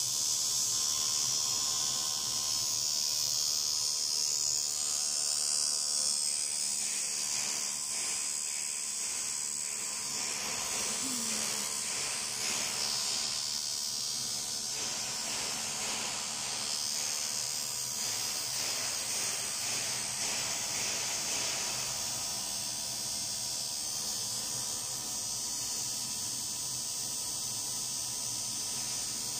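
Automatic TIG welding arc on an aluminum tank's circular seam, burning with a steady buzzing hiss.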